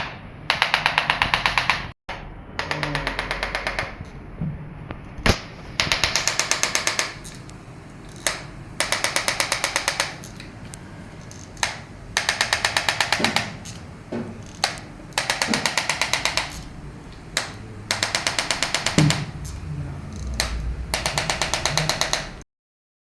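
Electric chiropractic adjusting instrument firing in rapid bursts of clicking thrusts, each burst lasting about a second or so and repeated about eight times, with a few single sharp knocks between bursts.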